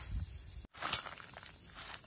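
A plastic tarp rustles briefly as it is handled. After a short break, a bundle of thin metal tent pegs clinks sharply once about a second in.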